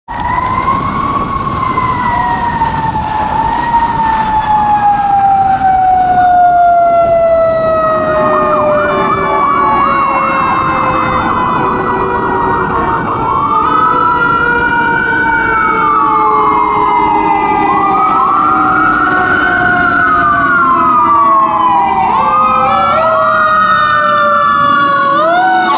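Sirens of an American LaFrance fire engine and a Ford F-450 ambulance running an emergency response. One siren tone slides slowly down in pitch through the first half. The other cycles through a fast warble and then repeated rising-and-falling wails, with quick yelps near the end.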